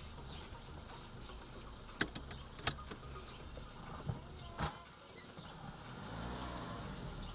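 Inside a stopped car: a low rumble with a few sharp clicks, then a low mechanical hum rising and bending in pitch near the end as the car starts to pull away.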